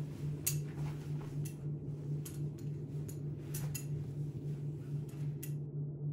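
Irregular light clicks and ticks from clothes and a robe belt being handled, over a steady low hum. The clicks stop about five and a half seconds in.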